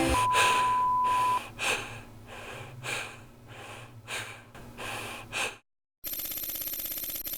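A person panting in quick, hard gasps, about two breaths a second. A steady electronic beep cuts off about a second in. Near the end, after a moment of dead silence, a steady electronic buzz with a high whine comes in.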